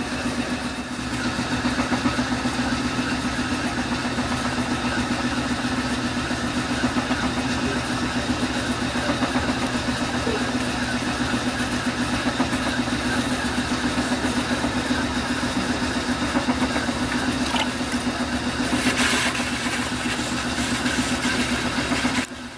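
Motor-driven potter's wheel running steadily under a pot being thrown, a constant even hum that holds one pitch throughout.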